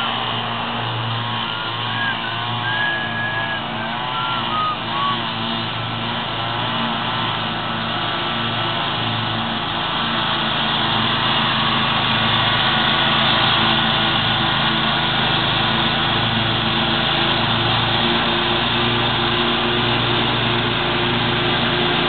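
Steady drone of small lawn-care engines: a ride-on mower cutting grass, getting somewhat louder about halfway through. A few wavering high tones sound over it in the first few seconds.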